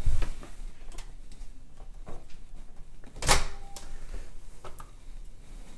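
An over-the-range microwave door is popped open with a sharp clunk about three seconds in, among a few lighter knocks and footsteps across the kitchen floor.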